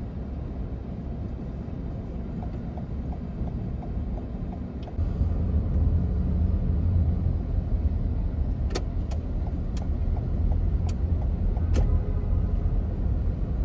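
Car driving through a multi-storey parking garage, heard from inside the cabin: a steady low engine and road rumble that gets louder about five seconds in, with a few sharp clicks in the second half.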